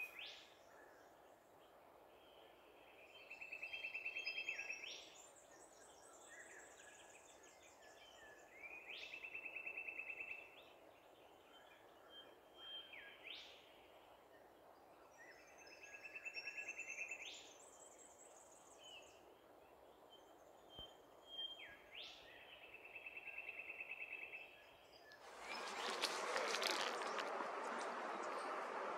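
A bird calling over and over, about every six seconds: a buzzy trill held for a second or so that ends in a quick rising whistle, with short higher notes between calls. Near the end a louder steady hiss comes in.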